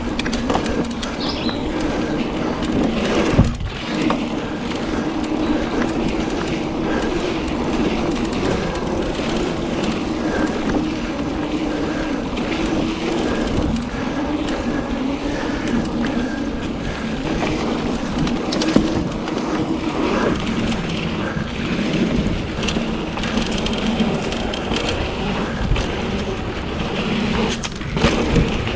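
Trek Fuel EX mountain bike riding a dirt singletrack: a steady hum and rush of knobby tyres rolling, with a sharp thump about three and a half seconds in and another smaller one later.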